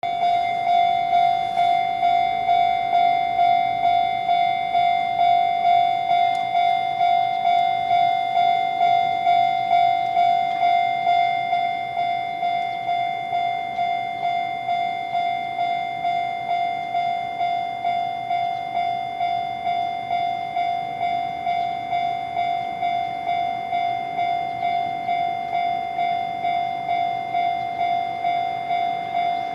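Japanese railway level-crossing alarm bell ringing its repeated electronic ding at about two strikes a second. It gets slightly quieter about twelve seconds in.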